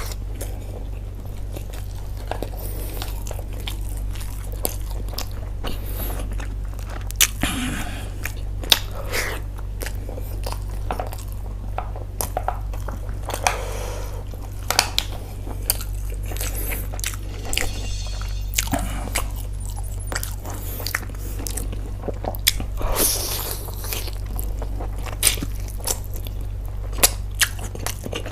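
Close-miked chewing and biting of food, with frequent sharp wet clicks and smacks over a steady low hum.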